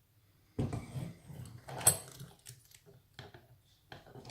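Metal clicks and rattles from a just-picked lock and its picking tools being handled, with a knock about half a second in and one sharp click near two seconds, then a few lighter clicks.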